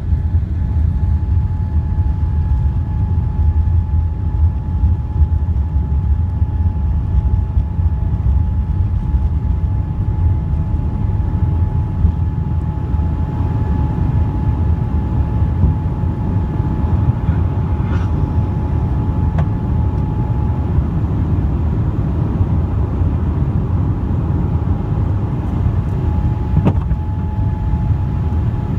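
Cabin noise of a Boeing 787-8 at takeoff power climbing out after liftoff: a steady, deep engine and airflow roar with a thin steady whine over it. A faint click comes about 18 seconds in and another near the end.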